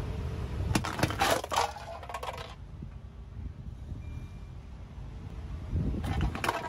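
Empty tin cans crumpling and crunching under a car tyre, with a quick run of sharp metal crunches from about a second in lasting a second and a half and another short burst near the end. Underneath is the low rumble of the car rolling.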